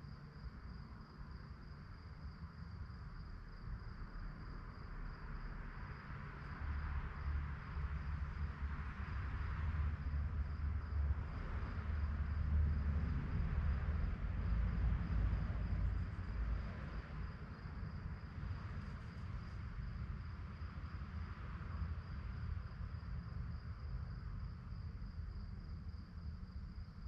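Crickets chirping in a continuous fast, pulsing trill, with a low rumble underneath that swells in the middle and then eases off.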